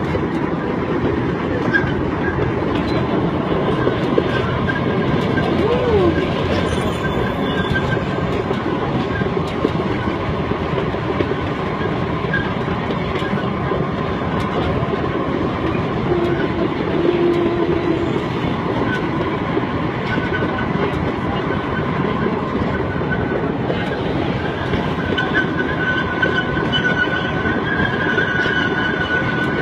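Park ride train running along its track: a steady rumble with wheels clacking over the rails, and a thin, high wheel squeal that comes in near the end.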